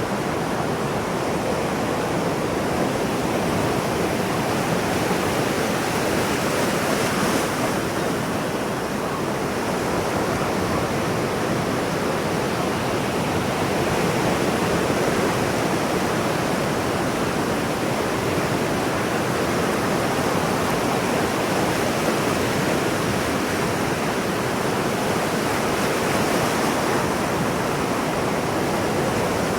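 Ocean surf washing steadily on a shore: a continuous rushing wash of waves without distinct separate breakers.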